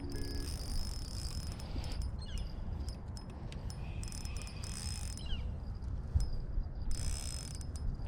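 Insects buzzing high-pitched in stretches of about a second that start and stop, over low wind rumble on the microphone.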